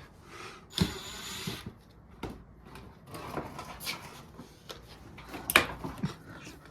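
Hand tools clicking and knocking as screws are undone, with a short rasp about a second in and a sharp knock about five and a half seconds in.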